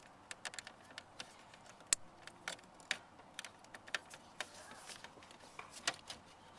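Scattered light clicks and taps at an irregular pace: small plastic and metal parts being handled and fitted during an ignition switch replacement.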